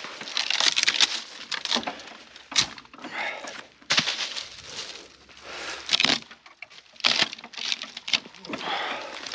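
Dry leaves and dead wood crunching and rustling as dead branches are gathered, with about five sharp snaps or knocks at irregular intervals.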